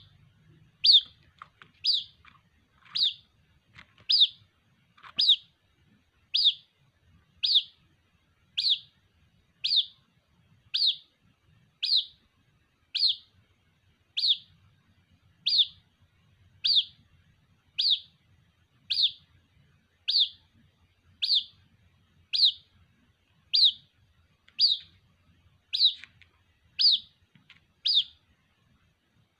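White-breasted waterhen (ruak-ruak) chick calling for its mother: a short, high, downward-sliding peep repeated steadily about once a second.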